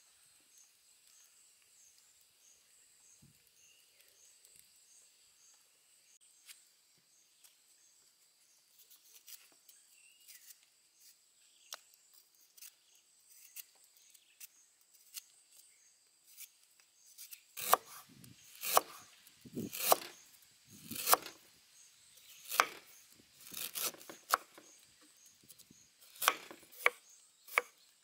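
A kitchen knife scraping and peeling a fresh root, with faint scratchy ticks. From about two-thirds of the way in it gives way to a knife chopping fresh turmeric on a wooden chopping board: sharp, irregular knocks about one a second.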